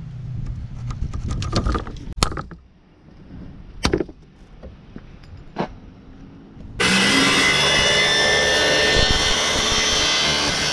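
A few sharp clicks and knocks, then a DeWalt circular saw starts up about seven seconds in and cuts through thin luan plywood with a loud, steady noise for about four seconds before winding down.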